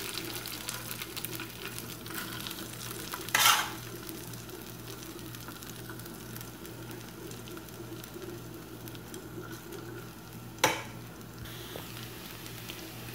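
Grated parboiled potato sizzling in olive oil in a non-stick frying pan as it is added and spread out into a rösti. A short scrape comes about three and a half seconds in, and a sharp knock near eleven seconds.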